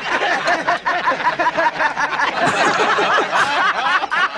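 Several men laughing loudly and hard together at a joke's punchline.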